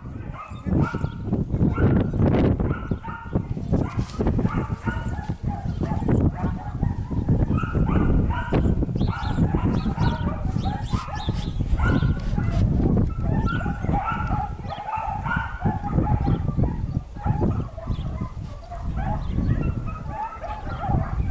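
A dog barking and yipping in short, repeated calls throughout, over a heavy low rumble of wind on the microphone.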